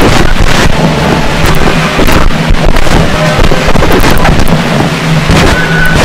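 Experimental turntable noise: records worked by hand make a loud, dense wash of rumbling noise with irregular sharp crackles and bursts over a steady low drone.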